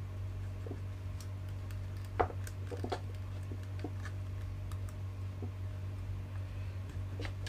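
Light clicks and ticks of gloved hands fitting wires and a small circuit board into a plastic battery-pack case, with a few sharper clicks about two to three seconds in, over a steady low hum.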